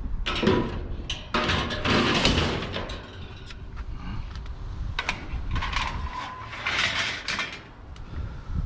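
Scrap items being handled and moved about in a kerbside rubbish pile: irregular scraping, rattling and a few sharp knocks, with wind rumbling on the microphone.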